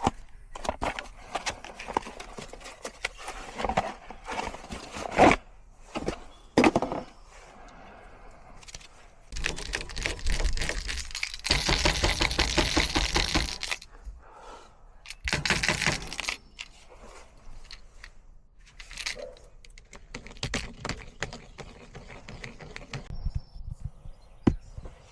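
Clicks, knocks and scrapes of tools and metal parts being handled during refrigeration repair work, with a longer rushing, hissing noise around the middle and a shorter one just after.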